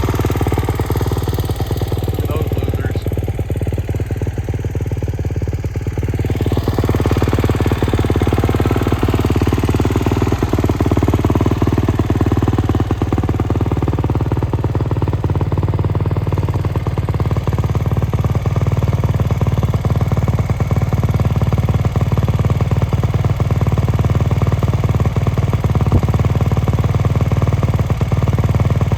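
A 2023 Kawasaki KX450's single-cylinder four-stroke engine idling through its exhaust, a steady fast pulsing that gets a little louder about seven seconds in.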